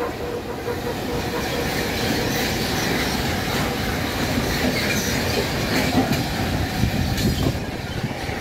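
Freight train rolling past close by: a steady rumble of wagon wheels on the rails, with repeated clatter.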